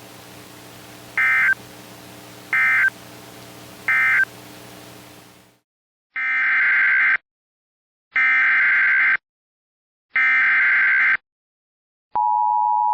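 Emergency Alert System data tones: three short end-of-message bursts over the hiss and hum of the weather radio feed, then silence, then three longer header bursts that start the next alert. Just before the end, the steady two-tone attention signal begins.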